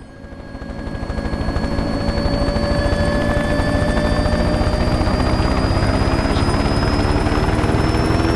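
Helicopter sound: a fast, even rotor chop under a whine that rises slowly in pitch, fading in over the first couple of seconds and then holding steady.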